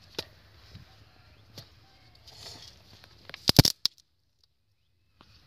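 Scattered knocks and scrapes of a small metal digging tool working into dry, cracked clay, with a loud cluster of sharp knocks about three and a half seconds in. The sound then cuts out for over a second.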